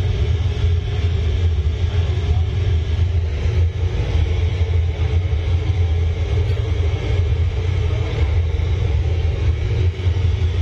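Pink noise test signal played loud and steady through sound-system speaker boxes, heaviest in the deep bass from the subwoofers, as the system is measured and tuned with real-time analysis software.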